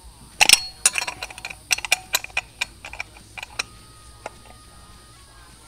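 Small ratchet wrench clicking in irregular runs as a fitting is tightened into an S&S Super E carburetor's aluminum body, the loudest clicks about half a second in.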